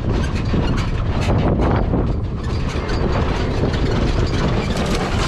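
Polaris RZR side-by-side driving along a rough dirt trail: its engine running under a steady low rumble of chassis and tyre noise, with frequent rattles and knocks from the body over bumps.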